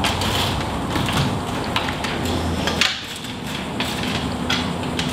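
Scattered metallic knocks and clanks as a person climbs an aluminium ladder, the strongest a little under three seconds in, over a steady background noise.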